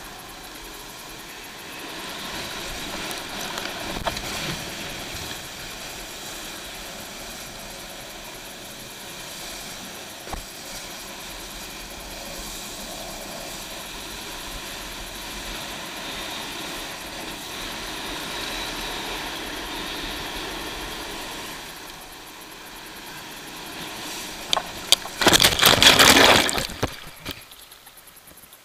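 Steady rush of wind over a helmet-mounted camera and water hissing under a wakeboard as the rider is towed. Near the end a loud crash of water lasting about two seconds as the rider falls in, then it goes quieter.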